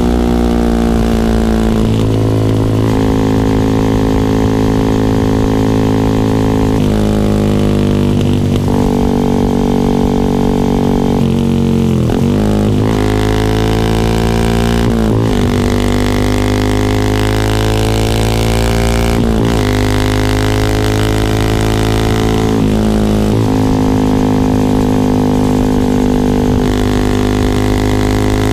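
Yamaha R15 V3's 155 cc single-cylinder engine running through an R9 GPX-SS full-system exhaust. Its note holds steady for a few seconds at a time, with several quick rises and falls in pitch as the revs change.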